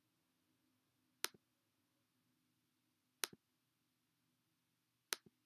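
Three computer mouse clicks about two seconds apart, each a sharp click followed a split second later by a fainter one.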